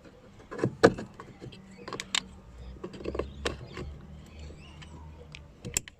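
Plastic wiring-harness plugs being pushed into a car's power window and side-mirror switch: scattered clicks and knocks of plastic, the loudest about a second in. A click means the socket has latched fully home.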